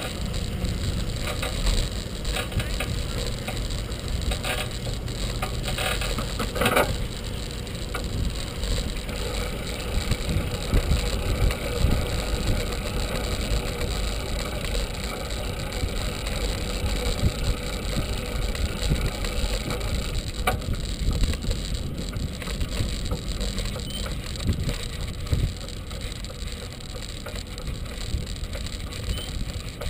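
Bicycle riding along a paved path heard from a camera on the bike: steady wind rumble on the microphone with tyre and frame noise, and a few clicks and rattles several seconds in.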